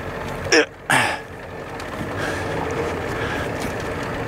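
Old Ford Econoline van's engine running as the van creeps forward against something blocking the wheels, a steady hum that grows slightly louder after the first second. Two short louder sounds come near the start.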